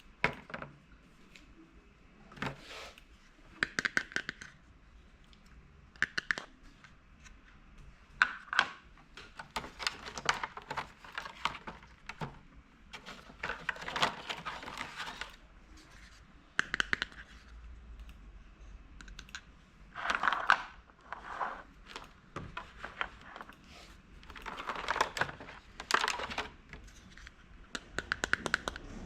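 Small plastic toy pieces being handled: irregular clicks and taps as they are set down and fitted together, with short rustling and scraping between them.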